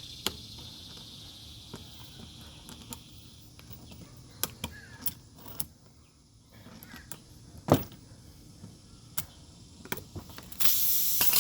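Scattered light clicks and taps of hand tools working in a tire's puncture, then near the end a loud, steady hiss of air rushing out of the punctured tire.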